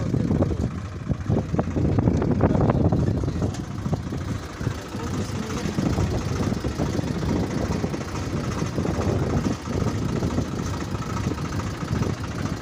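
Swaraj 735 XT tractor's diesel engine idling close by, a steady low running.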